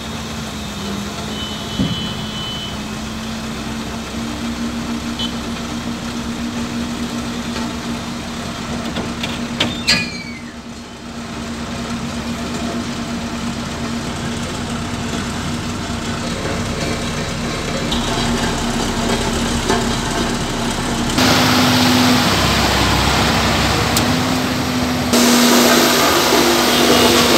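Ashok Leyland tipper truck's diesel engine running steadily while the raised dump body is lowered, with a sharp knock about ten seconds in. The sound grows louder and noisier over the last several seconds as the truck pulls away.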